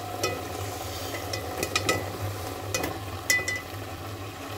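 Green masala paste sizzling in hot oil in a steel pot, with several sharp metallic clinks of a steel ladle and a strainer against the pot as minced meat is added, some leaving a short ring. A low steady hum runs underneath.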